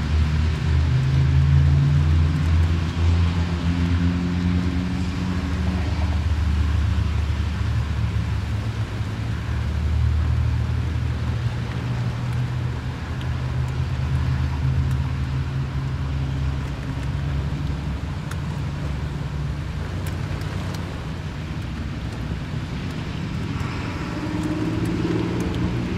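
Road traffic heard from inside a parked car: a steady low rumble of passing vehicles' engines and tyres. Louder vehicles pass in the first few seconds and again near the end.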